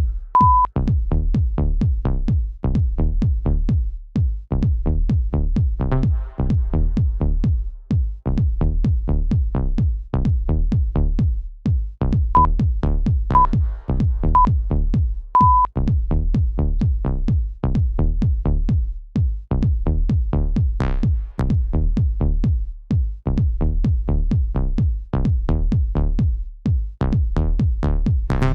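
Electronic dance music with a steady drum-machine beat. A workout interval timer beeps once, long, right at the start, and again about twelve seconds in with three short beeps a second apart and a longer final beep: a countdown marking the change of exercise.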